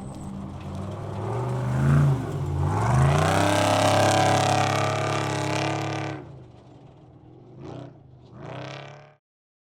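Off-road race vehicle engine accelerating hard, its pitch climbing and dropping back at gear shifts, loudest in the middle, then fading away. Two brief revs near the end before it cuts off abruptly.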